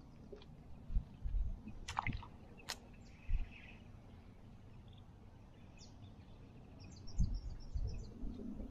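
Quiet waterside ambience: low bumps and a couple of sharp clicks in the first three seconds, then a bird chirping a quick run of short high notes about seven seconds in.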